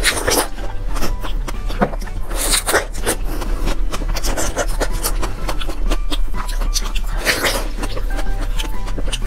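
Close-miked eating of fresh strawberries: wet biting and chewing with many small mouth clicks, and louder rushes of noise right at the start, about two and a half seconds in, and about seven seconds in.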